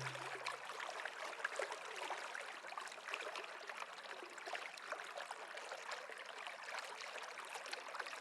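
Running water, a small stream trickling and splashing steadily.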